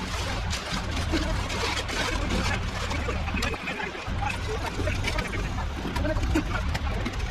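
A steady engine hum under a run of sloshing and scraping, with some voices in the background.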